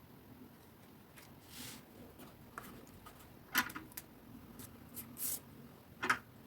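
Faint tabletop craft handling of a gel pen on cardstock: soft scratchy strokes and light taps, with two sharper clicks about three and a half and six seconds in.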